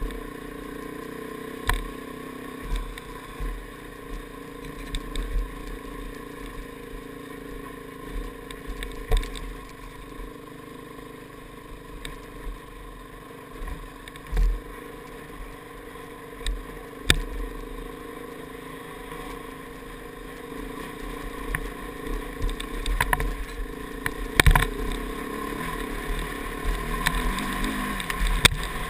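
KTM 690's single-cylinder engine running steadily while the motorcycle climbs a rocky trail. Frequent sharp knocks and clatter come from the bike jolting over stones, and they grow busier near the end.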